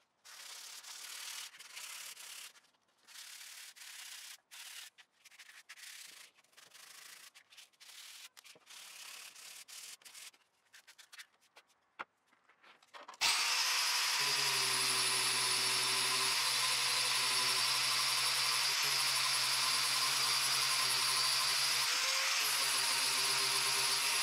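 A wooden tool handle being rubbed by hand with sandpaper, in irregular strokes with short pauses. About 13 seconds in, an electric angle grinder starts abruptly and runs steadily with a motor hum and a high whine.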